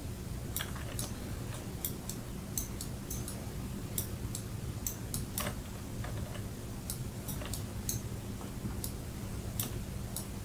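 Light, irregular clicks of a computer mouse and keyboard, about one to three a second, over a steady low electrical hum.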